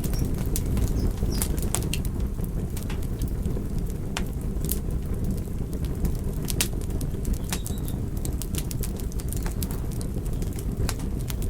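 Logs burning in a fireplace: a steady low rumble of flames with frequent sharp, irregular crackles and pops from the wood.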